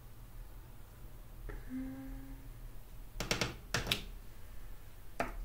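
Wooden-block rubber stamp being handled with an ink pad: a few sharp clicking knocks, in a quick pair a little past halfway and once more near the end, after a short steady hum.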